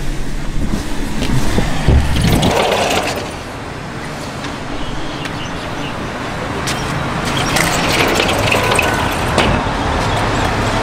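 Steady street traffic noise, with a vehicle engine running.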